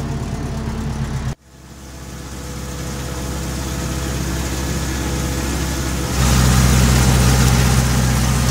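Ursus C-355 tractor's three-cylinder diesel engine running at a steady speed. The sound cuts off abruptly about a second and a half in, swells back up gradually, then jumps louder about six seconds in.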